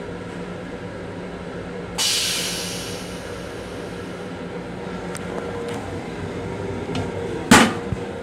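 Toilet lid dropped shut with one sharp clack near the end, over the steady hum of the M7 railcar running. About two seconds in, a sudden hiss starts and fades away over a second or two.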